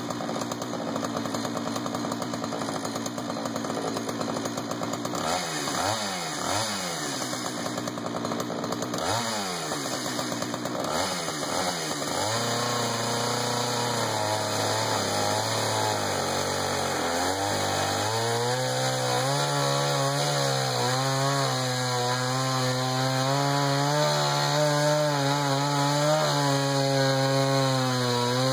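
Jonsered 2091 two-stroke chainsaw (93 cc) on a chainsaw mini mill, ripping a pine cant lengthwise with low-profile rip chain on a 20-inch bar. The engine runs at high revs throughout. Its pitch swoops up and down several times in the first part, then holds steadier under load in the cut from a little before the middle, wavering slightly and getting a little louder near the end.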